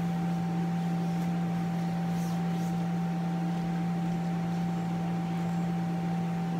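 Electric air blower of an inflatable water slide running with a steady hum.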